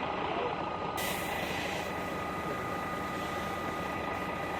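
Heavy engine running steadily, with a constant high whine over a broad rumbling noise.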